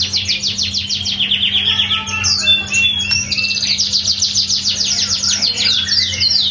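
White-rumped shama singing, deafening up close: rapid trills of fast downward-slurred whistles, a brief varied phrase about two seconds in, then another fast trill and slower, louder downward slurs near the end. A steady low hum runs underneath.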